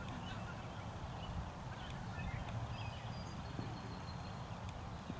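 Quiet open-air field ambience: a low, steady rumble with a few faint, short high chirps scattered through it.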